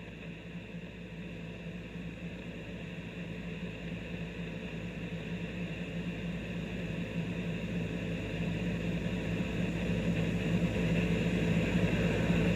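Motorola HT1250 handheld radio's speaker putting out a steady hiss with a low hum and no voice, slowly growing louder: an open channel between dispatch messages.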